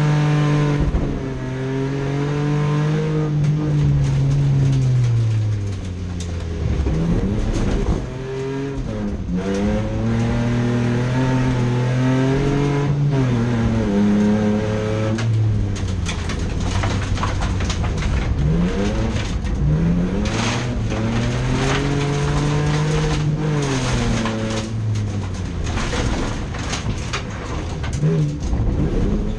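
Racing car engine revving hard, its pitch climbing and dropping again several times as the throttle is worked, with sharp crackles in the second half.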